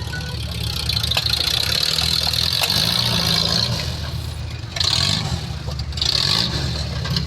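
Off-road 4x4 truck engine running and revving up and down several times, with a steady hiss over it.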